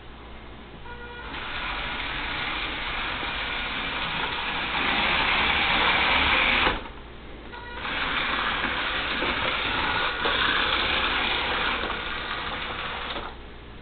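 Roomba robot vacuum driving, its wheel motors running in two stretches of about five seconds each, separated by a short stop about seven seconds in; each stretch cuts off suddenly.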